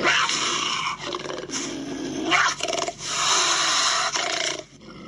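Recorded puma call played from a children's animal-sounds app through a tablet speaker: several rough, noisy bursts, the longest about three seconds in, ending shortly before the end.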